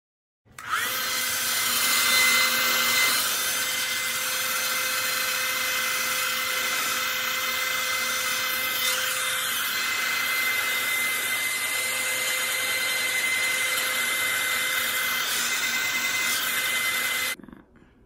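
Handheld hair dryer running: it starts with a quick rising whine about half a second in, then blows steadily with a constant high motor whine, and is switched off abruptly near the end.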